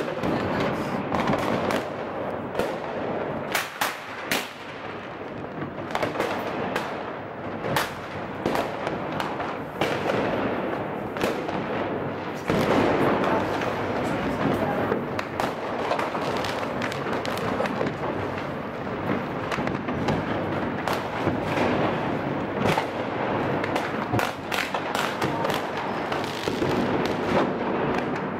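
Many fireworks and firecrackers going off at once: a dense, unbroken crackle of overlapping bangs, with some sharper, louder bangs standing out.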